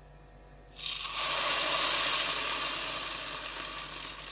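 Vellayappam batter sizzling as it hits a hot, oiled iron pan: a sudden loud hiss that starts a little under a second in and slowly dies down.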